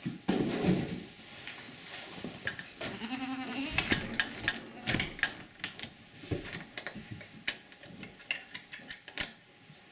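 Goat bleating, then a run of sharp clicks and knocks.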